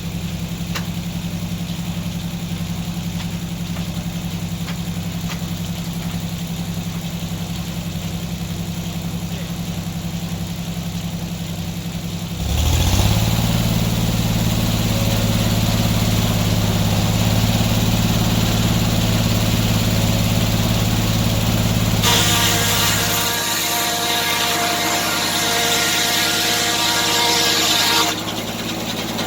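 Antique sawmill running: its engine holds a steady note, then is throttled up to a louder, higher speed about twelve seconds in. Near the end a bright, hissing whine with several ringing tones rises over the engine for about six seconds, the saw cutting through a log, then drops back.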